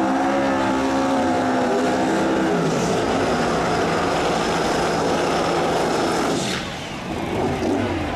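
Drag car engine held at high revs through a burnout, rear tyres spinning in smoke. A steady engine note breaks up about two and a half seconds in into a rougher, noisier running sound, which dips briefly near the end.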